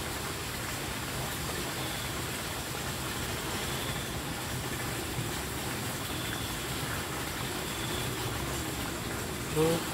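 Steady rushing of running water, with a faint short high-pitched tone repeating about every two seconds. A brief louder sound with a rising pitch comes just before the end.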